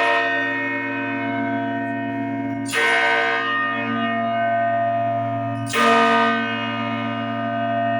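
Freiburg Cathedral's church bell tolling, struck about every three seconds, twice here. A deep hum and many overtones ring on between strikes.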